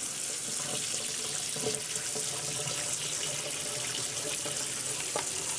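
Kitchen faucet running steadily into a plastic colander in a stainless steel sink as cooked tapioca pearls and their water are poured in from a pot, with a light knock near the end.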